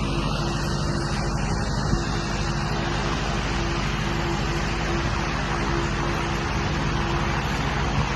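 Steady machinery hum with a continuous hiss, unchanging throughout.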